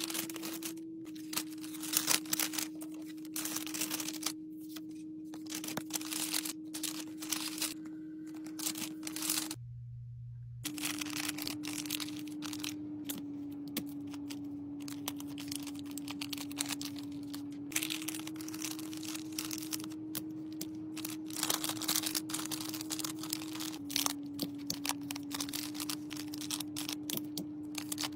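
Paper rustling and crinkling from sheets of pink paper being handled and folded into a packet, full of quick small crackles and clicks. Under it runs a steady low tone that shifts pitch a little now and then, broken by a second-long cut about ten seconds in.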